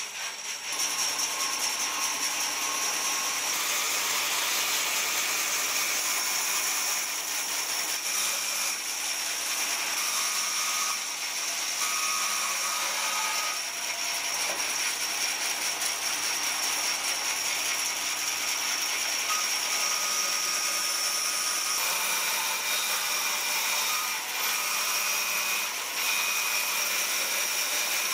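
Large bandsaw running and ripping a bark-covered log lengthwise, a steady mechanical cutting sound with a high whine.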